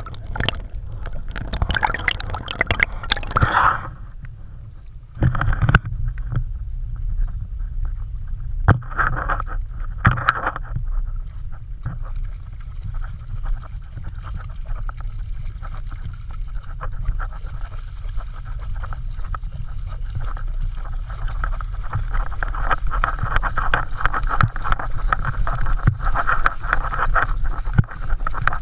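Shallow stream water gurgling and splashing close around a GoPro in its waterproof housing, over a steady low rumble, as a dog wades through it. Splashes come in bursts during the first ten seconds, and the rush of water grows louder in the last third.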